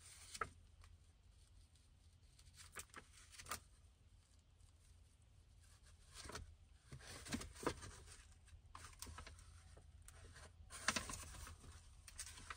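Faint, scattered rustles and small clicks of an old paper booklet being handled and leafed through, with the loudest handling sounds around the middle and near the end.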